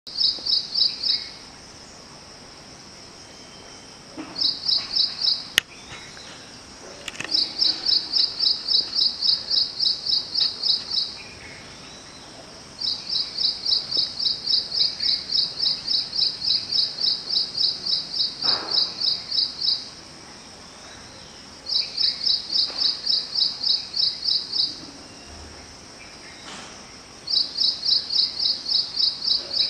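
Ashy prinia singing: bouts of rapid, evenly repeated high notes, about four a second, each bout running from one to seven seconds with short pauses between. A single sharp click a little over five seconds in.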